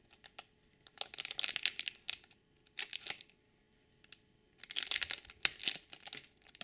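Crinkly plastic packaging of a blind-pack toy being torn and crumpled open by hand, in several short rustling spells.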